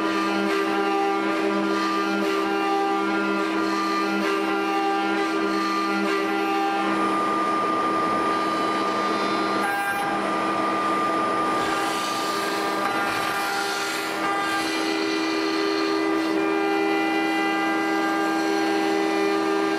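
ShopBot desktop CNC router carving a thick cherry plank: the spindle runs with a steady, multi-toned whine as the bit cuts. The sound changes about ten seconds in, where the lowest tone drops away.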